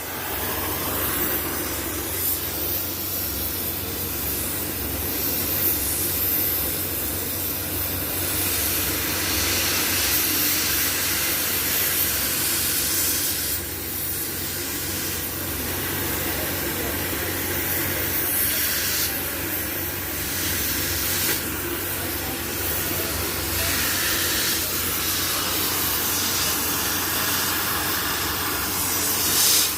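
Steady hissing and crackling of metal being worked with a welding arc or cutting flame, over a constant low electrical hum.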